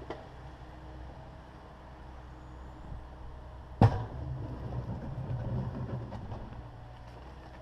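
Takeuchi TB260 excavator's diesel engine running steadily. About four seconds in comes one sharp, loud bang as the bucket strikes the concrete floor, followed by about three seconds of grinding and scraping of broken concrete.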